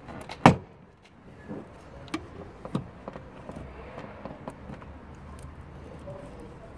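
BMW E90 door trim panel being lifted and pried off the door: one loud sharp plastic snap about half a second in, then a few lighter clicks and knocks as the panel is worked loose.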